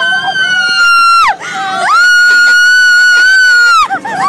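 Riders on a spinning carnival ride screaming: two long, high-pitched screams, the first breaking off after about a second, the second held steady for about two seconds before cutting off.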